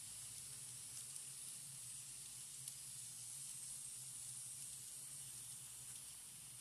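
Faint steady hiss and low hum of an N scale model freight train rolling along its track, with a few light ticks.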